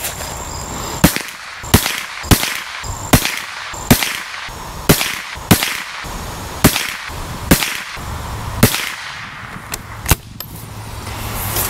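A Tikka T1X bolt-action .22LR rifle firing CCI AR Tactical rounds: a string of about ten sharp, single shots, roughly one a second.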